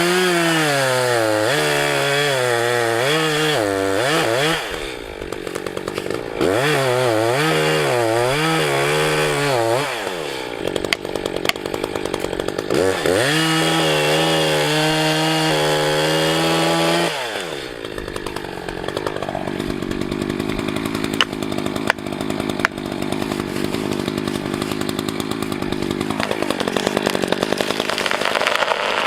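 Gas chainsaw cutting into a tree trunk in three long cuts at high throttle, the engine pitch dipping and recovering under load in the first two and holding steady in the third, with the saw easing off between them. It runs more quietly for the last third.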